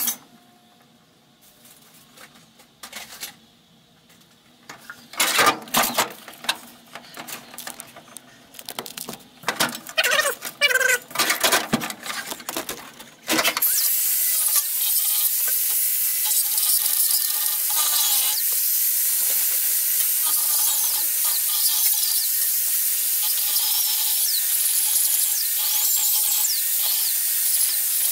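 A series of metallic knocks and clanks, then about halfway through an angle grinder starts and grinds steadily into the steel cab floor of a 1966 Ford F100, its whine wavering up and down as the disc bites.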